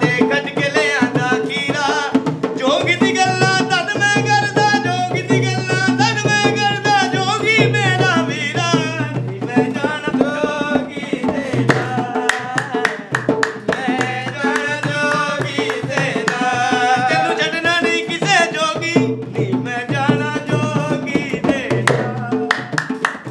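Folk song: a solo voice singing a wavering melody to a steady dholak drum beat, with hand clapping.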